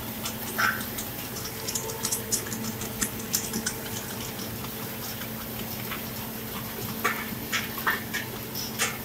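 Sawdust briquette screw extruder running with a steady hum, with irregular sharp clicks and ticks over it.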